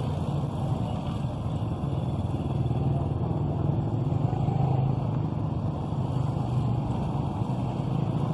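Small motorcycles with vendor carts attached riding past one after another, their engines running steadily.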